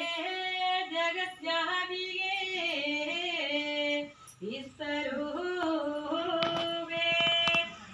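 Women singing a bhajan, a Hindu devotional song, in one melodic line with gliding, held notes; a few sharp clicks sound near the end.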